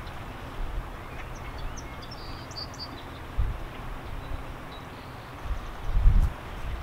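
Outdoor riverside ambience: a steady low background rush with faint bird chirps, and two low bumps, about three and a half and six seconds in.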